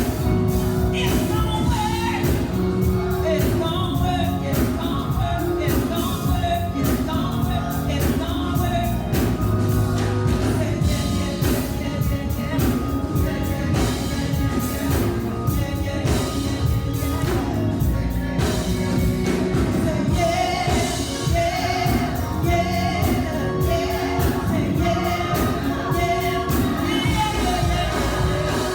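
Gospel music: voices singing over a band with a steady drum beat.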